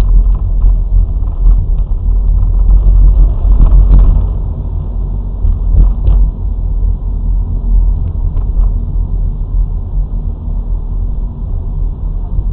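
Car driving in traffic, heard from inside the cabin: a loud, steady low rumble of engine and road noise, a little louder in the first few seconds, with a few faint knocks.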